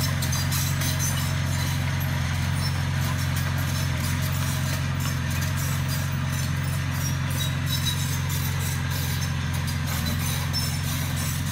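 Komatsu crawler bulldozer's diesel engine running at steady revs, with a light irregular clatter from its steel tracks.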